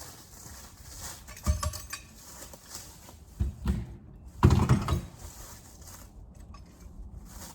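A few heavy clunks and knocks of metal tractor-implement pins and hardware being handled and set in place; the loudest comes about halfway through.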